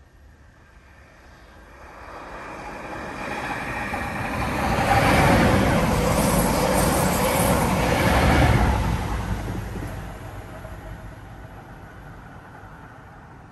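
A passenger train passing by: it builds from a faint approach, is loudest for a few seconds in the middle, then fades away as it recedes.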